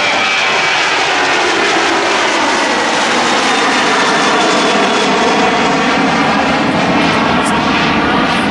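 Jet engines of a Southwest Airlines Boeing 737 at takeoff thrust as it climbs away, a loud steady jet roar. A high whine fades out over the first couple of seconds.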